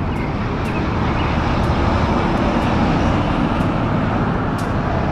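Sound effect of a truck running steadily: an even engine and road noise, strongest in the low end, with no change in pitch.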